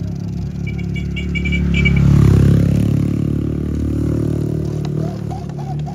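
A motor vehicle's engine passing by, swelling to its loudest about two seconds in and then slowly fading. A quick run of high chirps sounds in the first two seconds.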